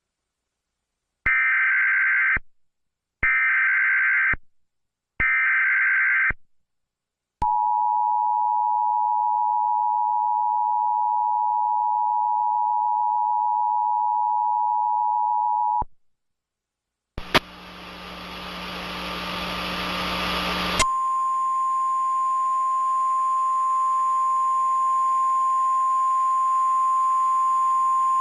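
Emergency Alert System tornado warning. Three short bursts of screeching SAME header data tones come first, then the two-tone attention signal (853 and 960 Hz) held steady for about eight seconds. After a brief gap, a few seconds of hiss rise in level, giving way to a steady single 1050 Hz alert tone.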